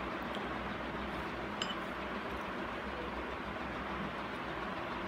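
Steady background hiss with a faint clink of a spoon on a glass chutney bowl about a second and a half in.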